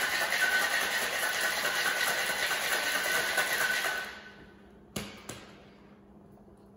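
Ice rattling hard inside a metal cocktail shaker being shaken, stopping about four seconds in. A moment later come two sharp knocks close together.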